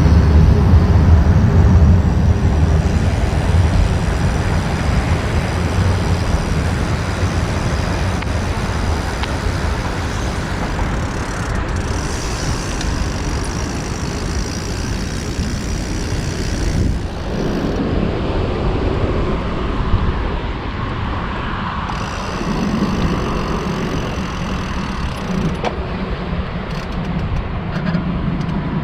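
Steady road traffic noise: a continuous low rumble without pauses, loudest in the first couple of seconds.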